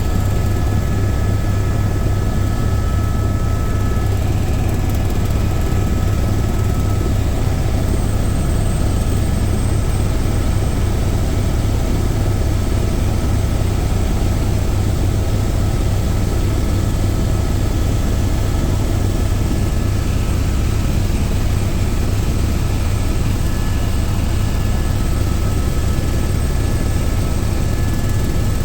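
Helicopter in flight, heard from inside the cabin: a loud, steady drone of rotor and turbine engine with a few faint high whining tones.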